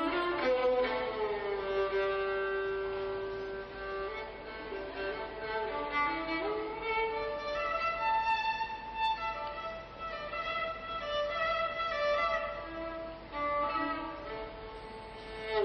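Solo violin playing a slow melody of long held notes, with an upward slide between notes partway through.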